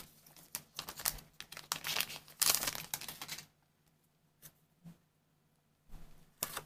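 Wixoss trading cards being handled in a stack, slid and flicked from one hand to the other: a dense papery rustle with quick clicks for about three and a half seconds, then a few single light clicks and a short burst of handling near the end.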